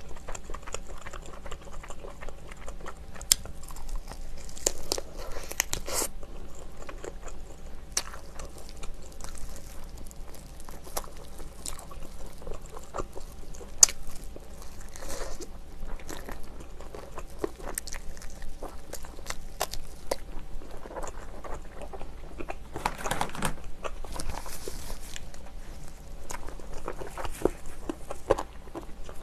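Close-miked biting and chewing of sauce-coated fried chicken, the batter crunching with scattered crackles. The crunching is heaviest about five seconds in and again around twenty-three seconds.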